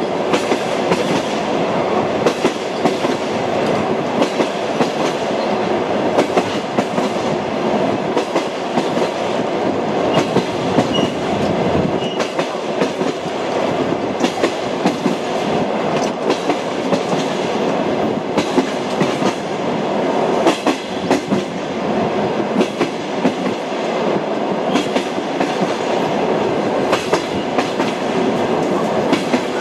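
Train wheels running over rail joints between stations: a steady rumble broken by frequent clickety-clack knocks.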